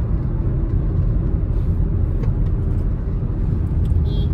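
A car driving along a highway: a steady, loud low rumble of engine and road noise.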